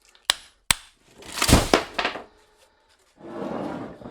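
Two sharp hammer blows on the steel E-plates of a transformer core, driving the laminations down out of the copper coils. They are followed about a second and a half in by a longer, louder clattering noise, and a quieter scraping near the end.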